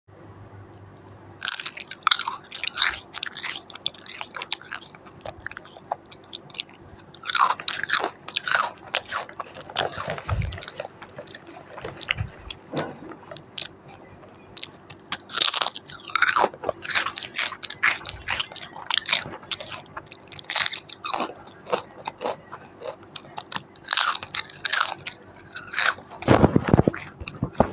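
Someone biting and chewing crisp potato chips close to the microphone: sharp crunches in quick clusters, with short pauses between mouthfuls.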